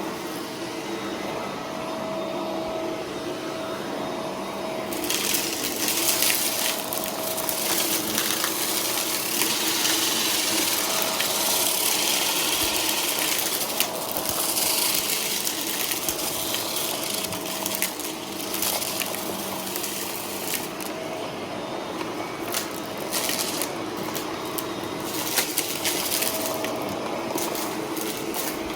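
Shark vacuum cleaner running with a steady motor hum, crunching as it sucks up debris: a long stretch of rushing pickup from about five seconds in to about sixteen seconds, then shorter spurts.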